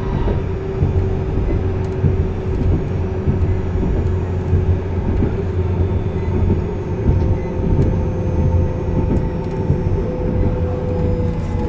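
Steady electrical whine from S-Wagen light-rail trams (Bombardier Flexity Swift) standing at a stop: the converter equipment sings several held tones of almost constant pitch over a low rumble.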